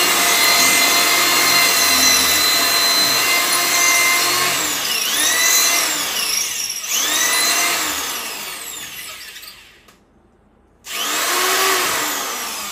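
Corded electric drill boring into a wall. The motor runs at a steady pitch, then dips and speeds back up twice, about five and seven seconds in, before winding down. After a second of silence it starts again about eleven seconds in and slows off.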